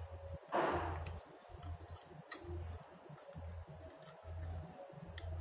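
Faint handling sounds as an optical cable plug is held and pressed against a small plastic audio converter box: a few light ticks and a short rustle about half a second in, over a low hum.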